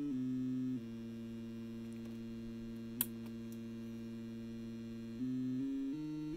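Synthesizer tone whose pitch is set by a dual quantizer, stepping in discrete notes of a scale. A couple of quick note steps at the start, then one low note held steadily for about four seconds, with a single sharp click about halfway through. The notes step again near the end.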